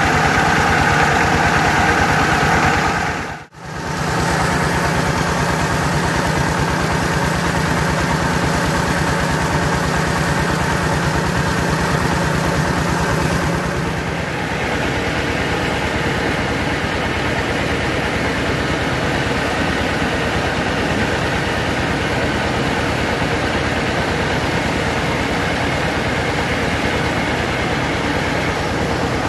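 Engine-driven rice milling machine running steadily: the engine's firing and the belt-driven huller and polisher with grain passing through. The sound drops out briefly about three and a half seconds in and shifts slightly in tone near the middle.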